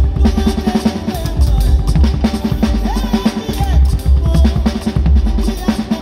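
Acoustic drum kit played with sticks for a sound check: a busy run of bass drum, snare and tom strokes with cymbals.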